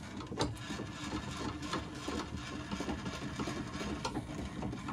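Vevor X-axis power feed motor running, driving the mill table through its spur gears with a steady light whir and fine gear chatter. The gear mesh has been set by ear, and the speaker calls it pretty quiet.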